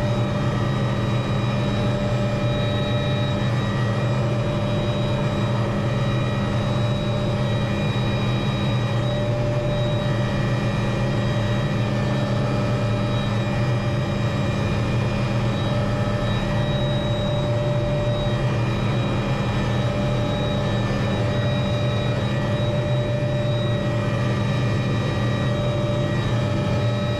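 Small helicopter running steadily as it comes in to land: a constant low drone with several steady higher tones on top.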